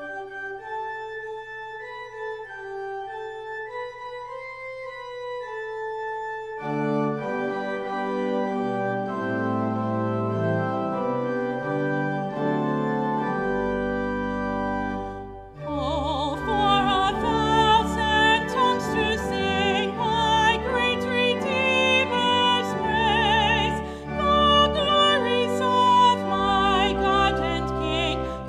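Church organ playing a hymn: a single melody line at first, fuller chords from about a quarter of the way in, and deep pedal bass joining about halfway. After a brief break just past the middle, a woman's voice with vibrato begins singing over the organ.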